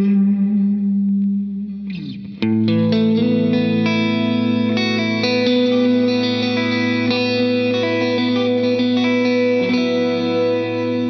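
Electric guitar played through a FLAMMA FS02 reverb pedal set to spring reverb: a ringing chord fades away, then a new chord is struck about two seconds in and rings on with a long reverb tail.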